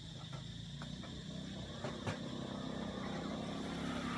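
A motor vehicle engine runs steadily in the background as a low hum, growing a little louder near the end, with a couple of sharp clicks about two seconds in.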